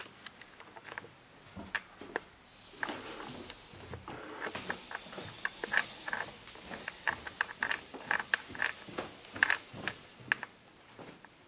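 Footsteps going down an indoor staircase, a string of short knocks and creaks, with a steady hiss under them for most of the middle.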